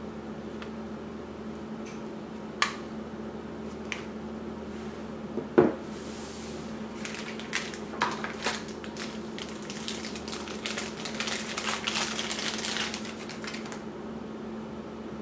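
Camera gear and plastic packaging being handled on a table: a few light clicks and one louder knock, then about seven seconds of plastic crinkling and rustling as accessories come out of their plastic tray and bags.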